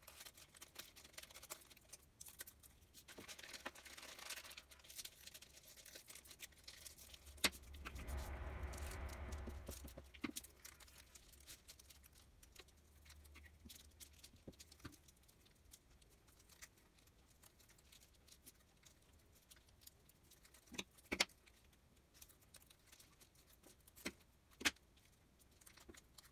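Faint crinkling of a foil tea packet and scissors snipping as it is cut into small pieces, with scattered light clicks and taps from handling the pieces. About eight seconds in, a low rumble lasts a couple of seconds.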